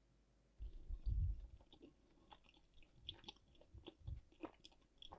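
Faint sounds of paratha and egg curry being eaten by hand: a few soft low thuds about a second in, then scattered small wet clicks and smacks.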